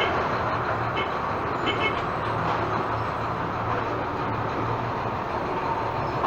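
Marcopolo Torino city bus on a Volksbus 17-230 EOD chassis under way: steady engine hum and road noise at an even level.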